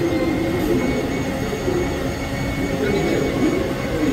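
Busy street ambience: a steady wash of crowd chatter over traffic and city hum.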